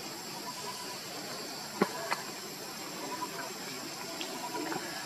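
Steady high-pitched hiss of outdoor forest ambience, with a sharp click about two seconds in and a fainter one just after.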